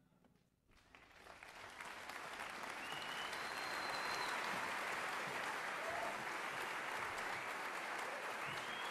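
Audience applause that breaks out about a second in and builds to steady clapping, with a few short whistles from the crowd.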